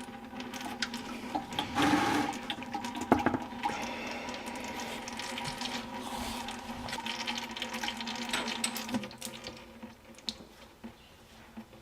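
Transmission oil pouring out of the backhoe's shuttle transmission sump drain and splashing, with a few metal clinks. The flow tapers off about nine seconds in.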